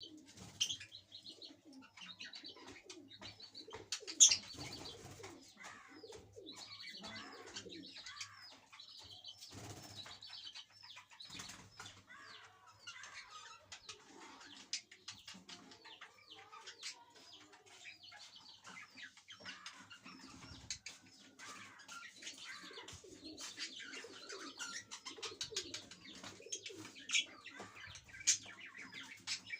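Budgerigars chattering in quick short chirps and warbles, with many small clicks mixed in and one sharp click about four seconds in.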